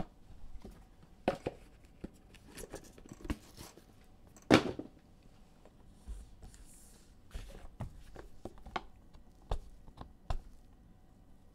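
Trading cards and their packaging being handled on a table: scattered clicks and taps, a louder knock about four and a half seconds in, and a short papery rustle a little after.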